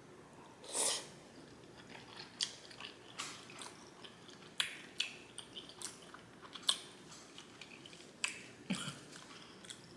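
Close-miked wet chewing and lip-smacking of shrimp wontons and noodles, with irregular sharp mouth clicks and a short breathy sound about a second in.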